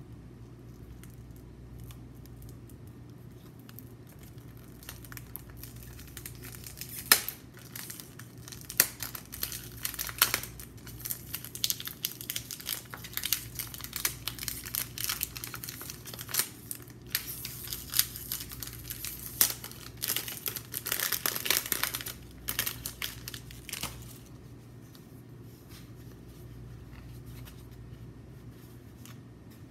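Paper and card perfume packaging being handled and unwrapped: crinkling and rustling with several sharp snaps. The handling is busiest in the middle and dies away well before the end, over a faint steady low hum.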